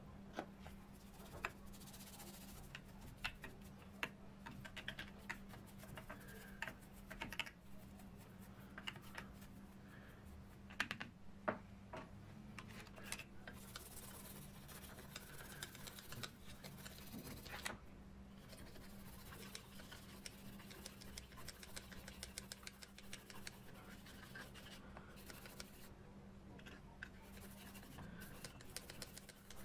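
Bristle brush scrubbing the oily gears, shafts and drum of an old Hasler Bern railway speedometer mechanism: a faint, irregular run of scratches and small clicks as the bristles rake over metal teeth and edges, over a steady low hum.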